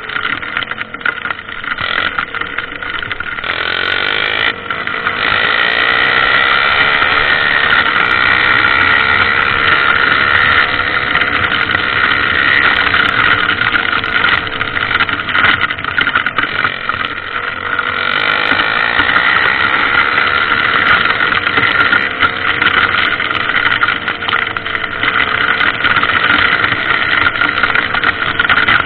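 Single-cylinder trail motorcycle engine running under changing throttle, its pitch drifting up and down, quieter for the first few seconds and then louder.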